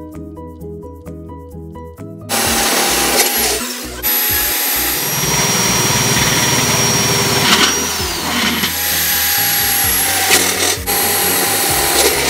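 Soft background music with mallet-like notes, then about two seconds in a hand-held power drill starts, loud and steady, boring holes through the metal lid of a large cracker tin. Its motor whine falls away several times as the drill slows and starts again.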